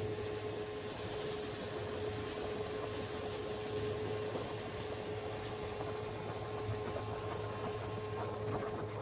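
Small boat's outboard motor running at a steady cruising speed, a constant hum under an even rushing noise.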